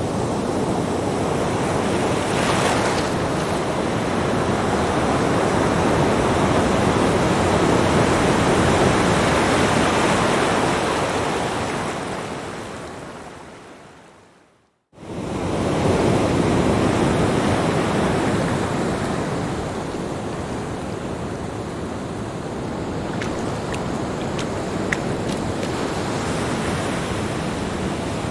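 Small ocean waves breaking and washing up a sandy beach, a steady surf wash that swells and eases. About halfway through it fades out to silence and then cuts back in abruptly.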